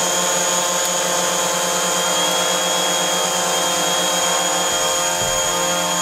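DJI Mavic Pro quadcopter fitted with DJI low-noise propellers, hovering close by: the motors and propellers make a steady, loud whine made of several held tones over a hiss.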